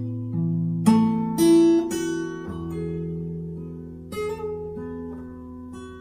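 Background music on acoustic guitar: plucked notes and strummed chords that ring out and fade, with a new chord struck every second or so.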